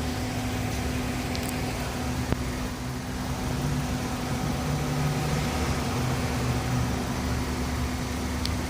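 A truck running with a steady low rumble and hum, with one short sharp knock about two seconds in. It is a rattle from under the truck that the owner says could be the suspension.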